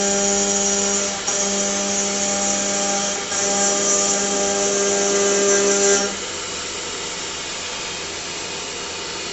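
CNC lathe running, a steady whine in three stretches separated by short breaks, cutting off about six seconds in and leaving the machine's lower steady hum.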